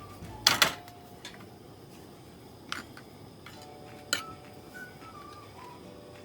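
Several sharp clinks and knocks like dishes or utensils being handled: two close together about half a second in, the loudest, and single ones near three and four seconds in. Behind them, faint whistled notes step down in pitch in a repeating phrase.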